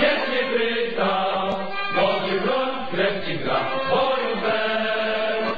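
Music with choral singing: a song sung by several voices with sustained, held notes.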